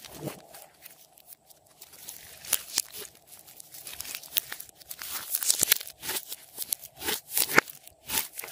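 Glossy slime being squeezed, folded and stretched by hand, giving sticky crackles and pops. The pops come thicker and louder from about two seconds in.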